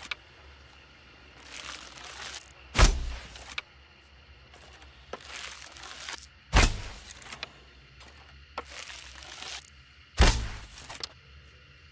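Bow and arrow shot sound effect, three times over: each time a short rush of noise, then a sharp, loud thunk with a deep tail.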